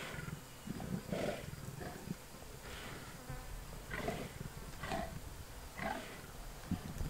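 Two lionesses feeding on a wildebeest carcass, with short growls and chewing sounds about once a second.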